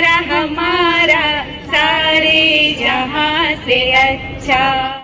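A woman singing a melody unaccompanied, holding long notes with a wavering vibrato.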